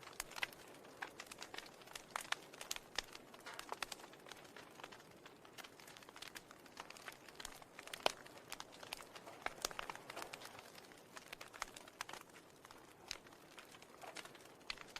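Faint, irregular crackling: many small sharp clicks and ticks, several a second, over a low hiss.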